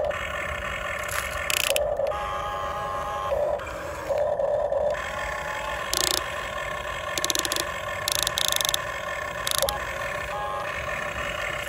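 Huina RC excavator's small electric motors and gearboxes whining in spells of a second or two as the boom, arm and bucket move. Short clicking and rapid ticking come between the spells.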